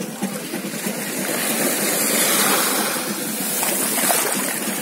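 Small sea waves washing and lapping onto the sand at the water's edge, a steady rush of water that swells about halfway through and again near the end.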